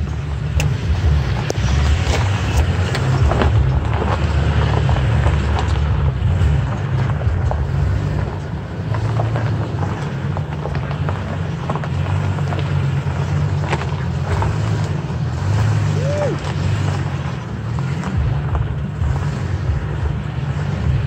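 Toyota Tacoma pickup crawling over a rocky, sandy trail: a steady low engine and drivetrain rumble, with the tyres crunching over gravel and stones in many sharp clicks. A brief squeak comes about three-quarters of the way through.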